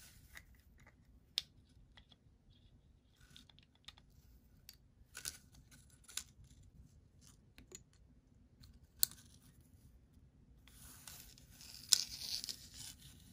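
Small sharp clicks and light scratching from hands handling a plastic bottle-cap carp feeder and threading fishing line through it, with a longer scratchy rustle near the end.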